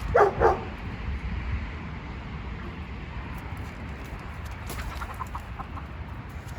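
Chickens clucking: two loud short clucks right at the start, then a quick run of softer clucks about five seconds in, over a low steady background rumble.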